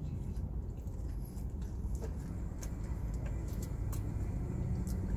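A person chewing a mouthful of burger with a crispy onion ring, with scattered small crunching clicks, over a steady low rumble inside a car's cabin.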